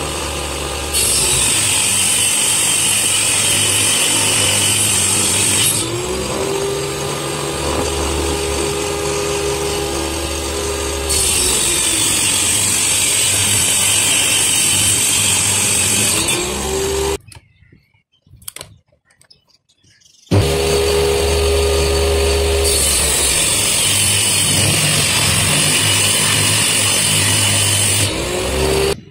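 Table saw running while its circular blade rips a laminated sheet board lengthwise. The pitch rises to a high whine during each of three cuts. The saw cuts off suddenly about 17 seconds in and comes back just as suddenly about three seconds later.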